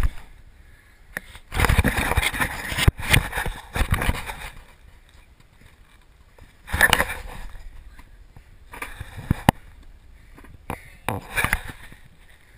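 Action camera lying on a trampoline bed being jostled and rubbed: several bursts of rustling, rumbling noise with sharp knocks, a long one about a second and a half in and shorter ones near seven, nine and eleven seconds.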